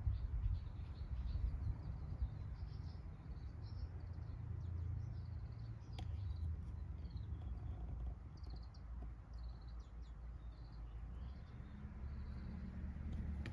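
Small birds chirping on and off over a steady low rumble, with a single sharp click about six seconds in.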